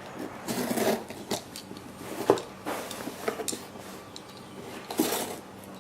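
A shipping package being handled and opened: several short rustling scrapes, with a sharp click a little over two seconds in.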